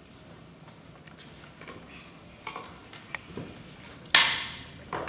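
Scattered light knocks and footfalls of actors moving on a stage. About four seconds in there is one loud sudden bang that fades over most of a second, followed by a smaller knock.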